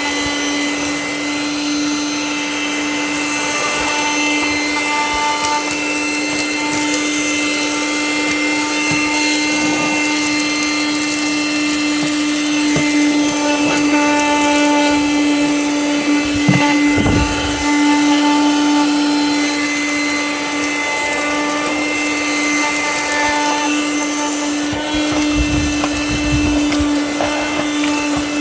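Reserwa 12V 106W handheld car vacuum running steadily at one constant pitch as it sucks up crumbs and small debris from the car's interior. A few low thumps come about midway and again near the end.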